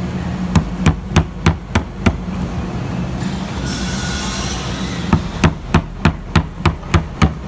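Hammer tapping a thin spatula into the seam of a wooden door panel's beading to work the bead loose. There is a run of about six sharp taps, a brief hiss, then about eight quicker taps, over a steady low hum.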